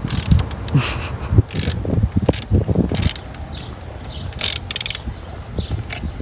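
Socket ratchet clicking and metal tool scraping while loosening the 15 mm bolts of a car's upper torque motor mount, in irregular strokes with sharp clicks.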